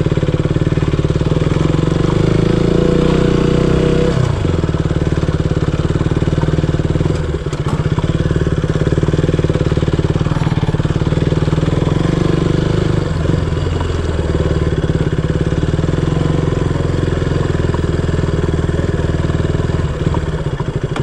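KTM Duke single-cylinder motorcycle engine ridden slowly at low revs, the pitch stepping down about four seconds in and rising and falling with the throttle.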